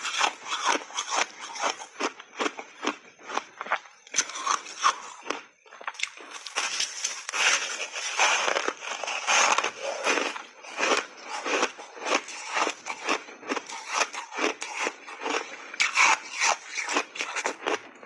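Close-up crunching and chewing of hard refrozen block ice, big bites broken up in rapid crunches several times a second, with a short lull about five seconds in.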